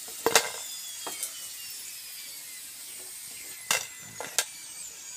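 A utensil clicking and knocking against a plate about four times while fried potato slices are served onto it, over a steady high hiss.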